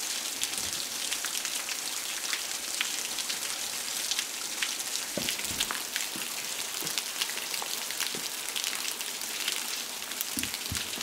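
A curtain of water drops falling from a rock overhang, pattering and splashing steadily like heavy rain, with many small drip ticks.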